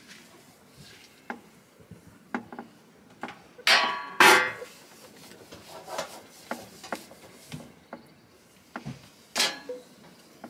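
Metal clinks and knocks from a two-burner Cadac camping gas stove being wiped down and handled, with two loud ringing clanks about four seconds in as its steel lid is shut, and another clank near the end.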